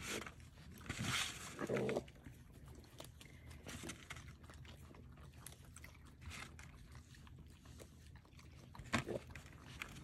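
Raccoons calling as they eat peanuts, the loudest calls about a second in. Then quieter crunching and clicking of nuts being chewed, with a sharp click near the end.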